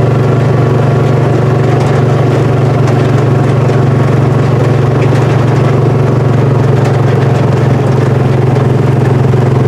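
Mule utility vehicle's engine running steadily while driving, with a strong low drone and no change in speed.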